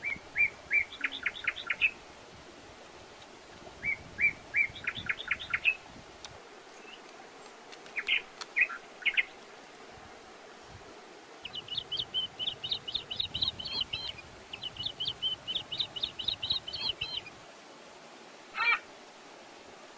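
Birds chirping in short phrases of quick high notes that repeat every few seconds, with two longer fast runs of chirps in the second half.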